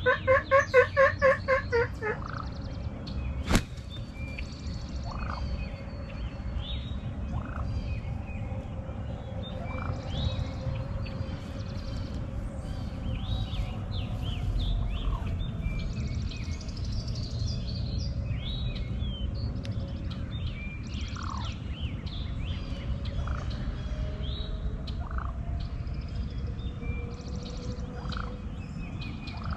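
Turkey calling: a quick run of about nine notes in the first two seconds, then a single sharp click. Small birds chirp here and there over a steady low outdoor background for the rest.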